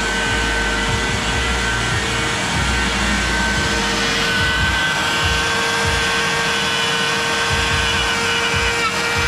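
A motor-driven shop tool running steadily, with a constant high whine over a dense hiss.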